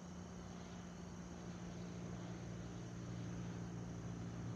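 Cessna 152's four-cylinder piston engine and propeller droning steadily overhead, growing louder as the plane approaches.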